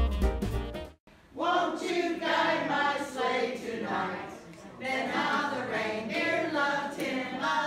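Background music cuts off abruptly about a second in. After a brief gap, a group of people sings together in a large room.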